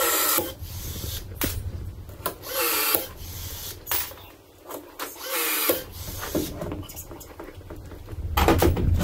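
Cordless drill run in four short bursts, each about half a second, a few seconds apart, working into aluminum boat framing. A low steady hum runs underneath.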